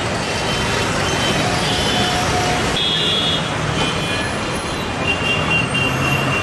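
Heavy, steady city traffic noise from buses, cars and auto-rickshaws, with vehicle horns sounding in short toots several times over it.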